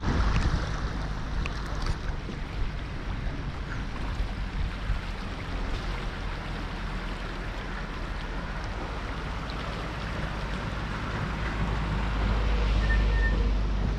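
Flood-swollen, fast-flowing river rushing: a steady noisy hiss, with a low rumble underneath that grows louder near the end.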